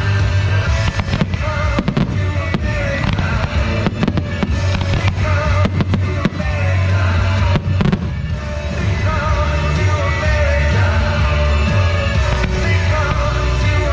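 Fireworks going off in quick succession, many sharp bangs throughout, over loud music with a heavy bass line.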